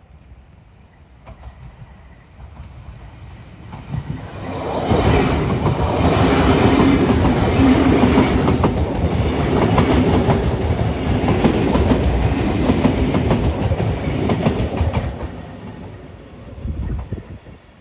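Hamburg S-Bahn class 474 electric train passing close by, wheels and rails clattering. The sound builds over a few seconds, stays loud for about ten seconds, then fades as the train moves away.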